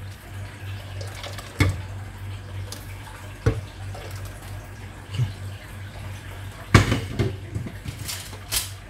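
Pots and kitchen utensils knocking and clinking about five times at uneven intervals, the loudest knock near the end, over a steady low hum.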